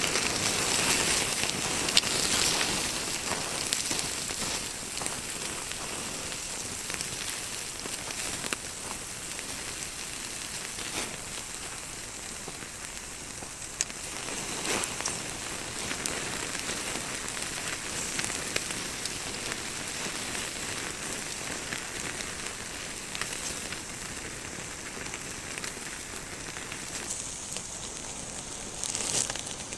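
Wood campfire crackling, with scattered sharp pops over a steady hiss, a little louder in the first few seconds.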